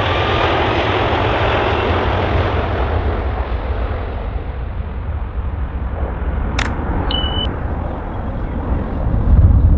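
Airbus Beluga XL's twin Rolls-Royce Trent 700 turbofans roaring at takeoff thrust during the takeoff roll and climb-out, with an engine whine still rising at the start. The higher tones fade as the aircraft draws away, leaving a low rumble that swells near the end. About two-thirds through comes a sharp click and a short high beep.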